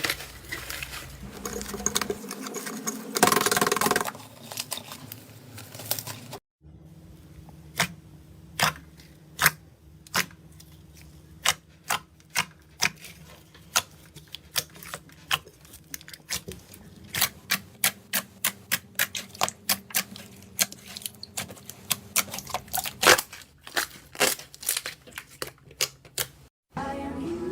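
Slime being squished and pressed by hand. A stretch of dense squishing and rubbing gives way, after a brief break about six seconds in, to crisp clicks and pops at roughly one or two a second.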